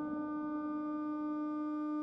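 Steady electronic alert tone, one low pitch with fainter overtones held unchanged, leading into an Emergency Alert System announcement.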